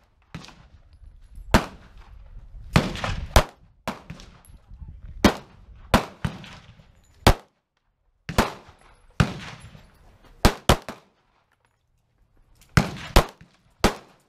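Semi-automatic pistol fired repeatedly: about a dozen sharp shots at uneven gaps, some in quick pairs, each followed by a short echo.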